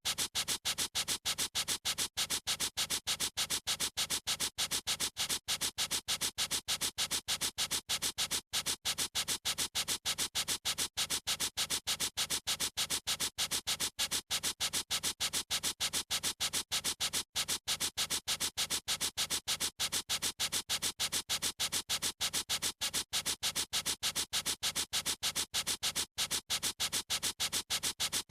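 Felt-tip marker scribbling on paper in quick, even back-and-forth strokes, several a second, with a dry rubbing hiss.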